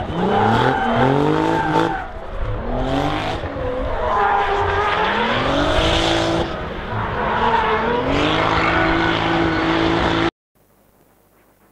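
Drift car's engine revving hard, its pitch sweeping up and down again and again as it slides, with tyre squeal. It holds a high steady note for the last few seconds, then cuts off suddenly near the end.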